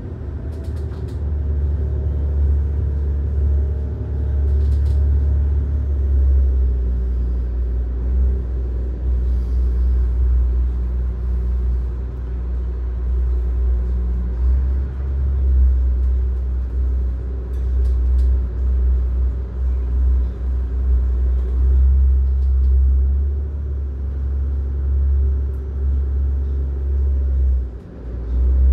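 Pilot boat's engines running with a steady low rumble, heard from inside the wheelhouse as the boat keeps pace alongside a ship under way during a pilot transfer. A few faint light knocks sound over it.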